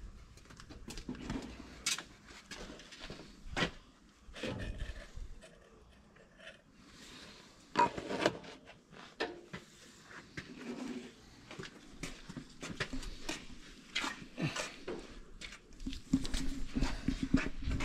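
Plastic oil jugs and a plastic funnel being handled while engine oil is poured into a tractor's oil fill: scattered light clicks and knocks.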